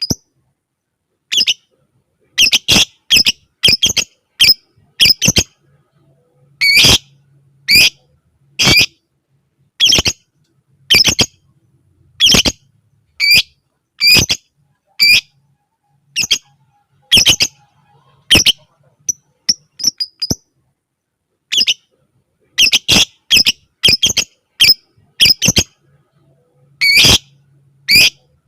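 Lovebird giving short, sharp, shrill calls, repeated in quick clusters of two to four with short pauses between: the excited 'ngetik' calling of a lovebird in breeding condition.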